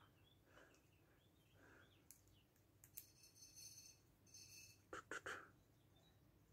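Near silence, with a few faint clicks and taps of steel lock picks being handled and set down on a laptop lid, the last two about five seconds in.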